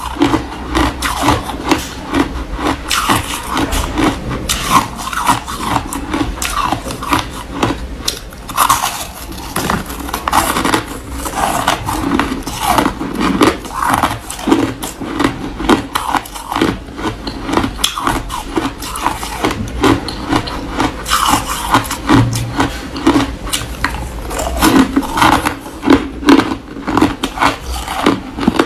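Chewing and crunching of packed white snow ice, a steady run of short crunches.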